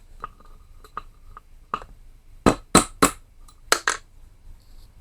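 A few light metallic clinks, then about five sharp hammer blows on metal in two quick groups: striking the crankshaft to drive it out of a Tecumseh lawnmower engine's crankcase.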